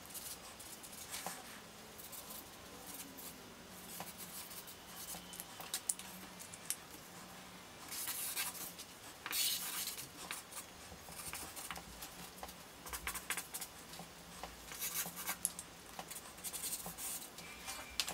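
Marker pen tips scratching across paper in quick, dense strokes, played back at four times speed. A faint steady low hum runs underneath.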